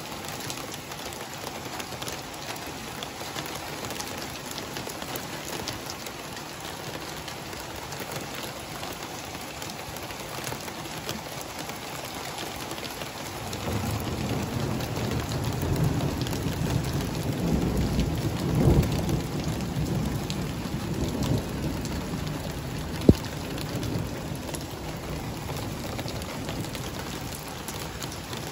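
Steady heavy rain falling, with a long low rumble of thunder that swells about halfway through, peaks a few seconds later and slowly fades. A single sharp click sounds near the end of the rumble.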